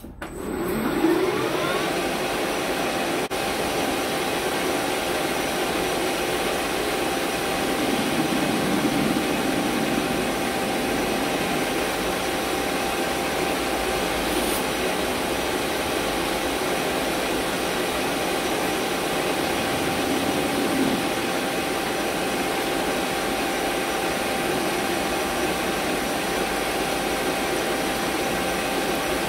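Hafco AL-356V metal lathe starting up, its pitch rising over the first second or two. It then runs at a steady speed with a constant whine while the tool takes a light facing cut off the end of a round bar.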